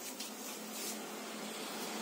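Steady hiss with a faint low hum from a motorized display turntable slowly rotating a diorama.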